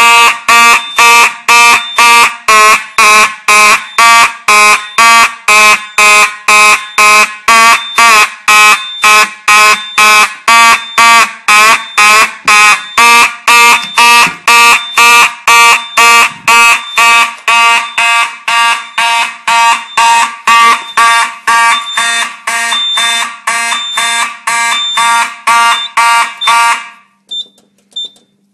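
Several Simplex fire alarm horns blaring together in march-time, about two loud pulses a second, driven by a Simplex 4008 fire alarm control panel. They cut off about a second before the end, leaving only a faint high beeping.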